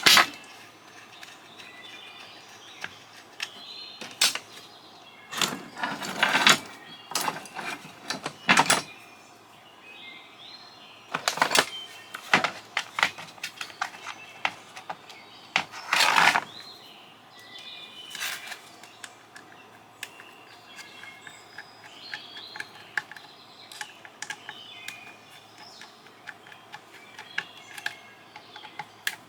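Scattered clicks, clinks and knocks of tools and small metal parts as a satellite LNBF is taken apart by hand, with birds chirping in the background.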